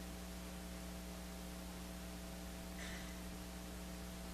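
Low, steady electrical mains hum with several overtones and a light hiss in the microphone and sound system, with a faint short noise about three seconds in.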